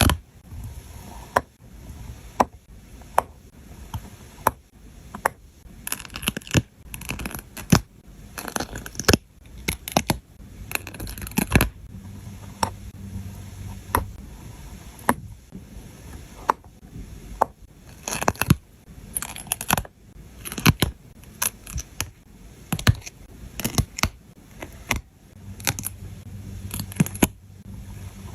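Paper crafting: scenery sticker sheets being cut with scissors and peeled, a sharp snip or click every second or so over light papery rustling and tearing.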